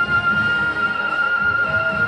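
A woodwind instrument holding one long steady note.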